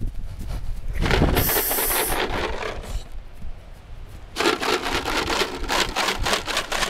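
Quick runs of footfalls on dry grass and dirt, in two bouts: one starting about a second in and one from about the middle until near the end, with a brief high hiss about a second and a half in.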